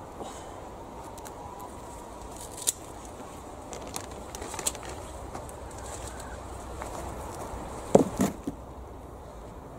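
Outdoor ambience with birds, and scattered clicks and soft scrapes from a garden fork lifting elephant garlic out of soil. Two heavy bumps close to the microphone about eight seconds in are the loudest sounds.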